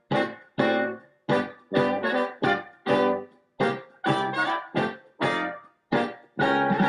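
Background piano music: separate struck chords about twice a second, each fading away before the next.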